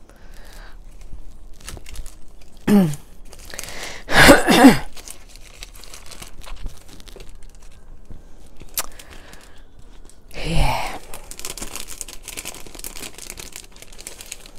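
Handmade greeting cards and their paper wrapping being handled and opened, crinkling and rustling, the crackle thickest in the last few seconds. Brief wordless voice sounds break in about three and four seconds in and again near ten seconds, the one around four seconds the loudest.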